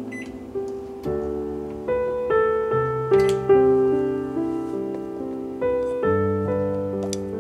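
Background piano music: a gentle melody of single notes and chords, each struck and dying away, about one to two notes a second.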